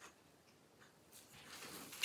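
Near silence, with a faint click and the soft rubbing of gloved hands handling a laptop, growing a little louder near the end.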